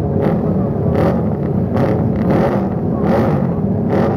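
Several vintage racing motorcycles riding past at low speed, their engines running with repeated surges of revving.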